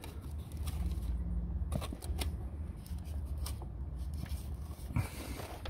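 Rustling and scattered light clicks as hands handle and bend the wiring loom, its paper tag and the plastic hose clips under the bonnet, with a steady low rumble underneath.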